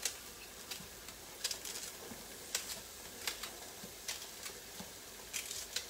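Spring onions cut coarsely with a knife in the hand, a series of sharp, irregular snaps as the blade goes through and the pieces drop into the pan, over a faint sizzle of onions frying.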